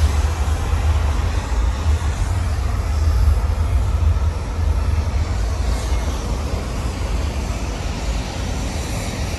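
Steady low rumble with a hiss above it: jet aircraft engine noise carrying across an airport ramp.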